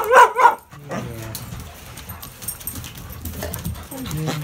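Australian shepherd dog whining in a few short, high yips in the first half-second, then quieter low sounds.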